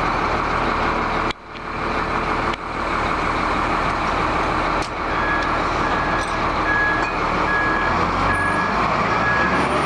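A heavy vehicle or machine runs steadily with a low rumble, with a sudden brief dip about a second in. From about halfway, a short high beep repeats about twice a second.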